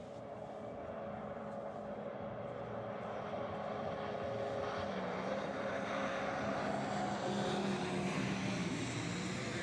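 An engine droning steadily, with a low hum and a higher held tone, growing gradually louder as it approaches.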